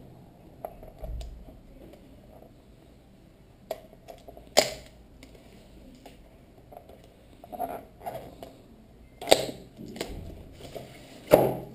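Hands handling and prying at a clear rigid plastic display case: low rubbing and rustling broken by a few sharp plastic clicks and knocks, the loudest about four and a half, nine and eleven seconds in.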